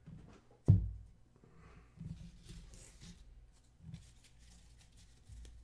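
Trading cards handled on a tabletop: a thump on the table about a second in, then cards sliding and rustling against each other, with a few light taps.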